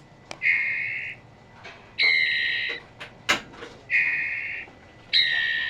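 Helmeted guineafowl calling in turn, likely a male and a female: four harsh, drawn-out calls, about one every second and a half, alternating between a lower call and a higher, wider one. A sharp click comes a little past halfway.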